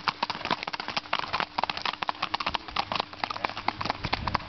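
Standardbred mare's hooves clacking rapidly on an asphalt road at a fast singlefoot/pace gait, a quick, slightly uneven run of sharp hoofbeats.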